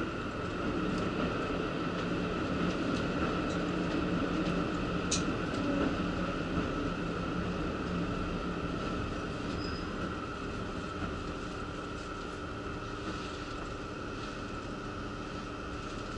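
KiHa 85 diesel railcar running, heard inside the passenger cabin: a steady low engine hum with a constant higher tone above it. There is one sharp click about five seconds in.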